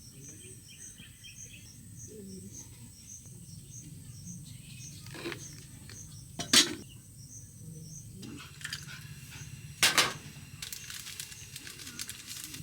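Insects, likely crickets, chirping at a steady pulse over a low background hum, mostly in the first half. Two sharp clicks or knocks stand out, one about six and a half seconds in and another near ten seconds.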